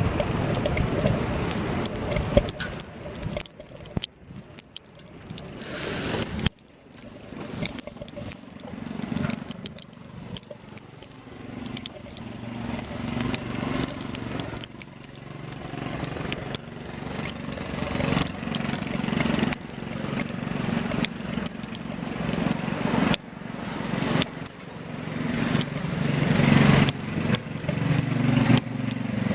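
Blizzard wind buffeting the microphone, mixed with the low rumble of street traffic, rising and falling in repeated swells, with scattered small clicks.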